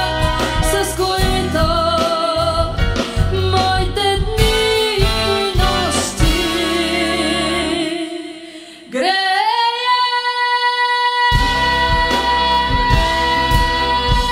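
Live pop ballad: a woman singing with vibrato over a band of bass guitar, guitar and piano. About eight seconds in the band drops out and a long held note slides up and is sustained alone, until the band comes back in about two seconds later.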